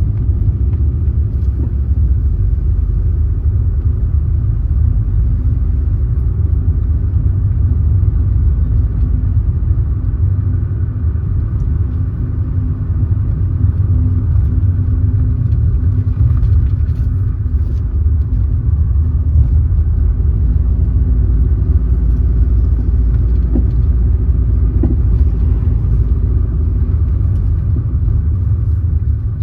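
A car driving at a steady speed, giving a continuous low rumble of road and engine noise.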